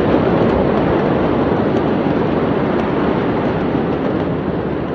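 Steady loud rushing noise with no tone or rhythm, and a few faint scattered clicks.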